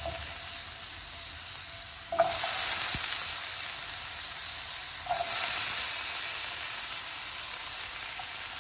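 Diced potatoes sizzling in hot oil with cumin seeds: a steady frying hiss. It flares louder about two seconds in and again about five seconds in, as more pieces are dropped into the oil.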